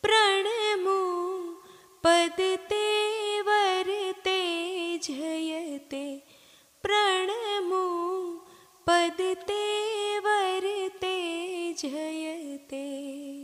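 A devotional verse sung unaccompanied by a single high voice, in four long, held, ornamented phrases with short breaths between them, ending near the end.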